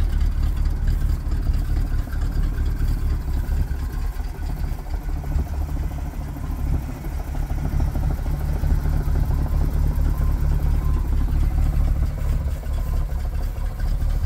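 1982 GMC C6500 grain truck's engine idling steadily.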